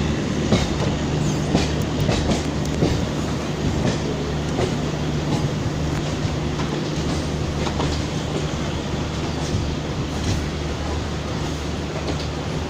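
Passenger train hauled by a WAP4 electric locomotive running on the rails: a steady rumble with a low hum, and irregular clicks and knocks of wheels over rail joints.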